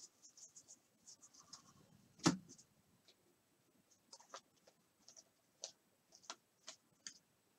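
Glossy chrome trading cards being slid and flipped through by hand: faint scrapes and irregular sharp clicks of card stock, with one louder knock a little over two seconds in.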